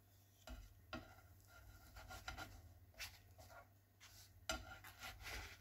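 Faint scrapes and light taps of a spatula sliding under and flipping small pancakes in a nonstick pan, with a clearer scrape about three seconds in and a few more near the end.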